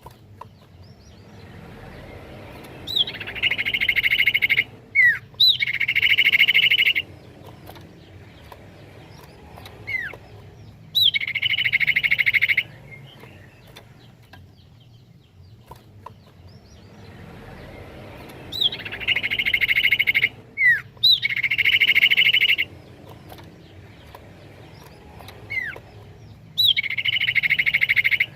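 Common iora (cipoh) song from a looped recording. Sharp falling whistled notes are each followed by a loud, buzzy rolling trill lasting one to two seconds. The sequence repeats identically about every sixteen seconds.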